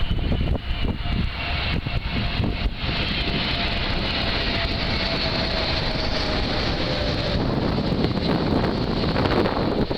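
Four-engined Airbus A380 jet airliner flying low overhead on final approach to land: a steady rushing engine noise with a faint whine that falls slowly in pitch as it passes.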